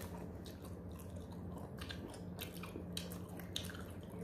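Close-up eating sounds: chewing and small wet mouth clicks as mutton paya meat is pulled off the bone by hand and eaten, over a faint steady low hum.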